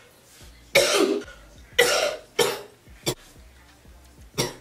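A woman coughing: three hard coughs in the first few seconds, then one more near the end.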